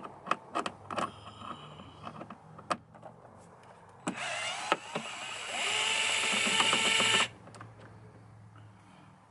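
Power screwdriver with a Torx bit running for about three seconds, backing a screw out of the soundbar grille, with rising whines as it spins up. The motor starts about four seconds in and cuts off suddenly. Before it come a few sharp clicks and taps of the bit and screws being handled.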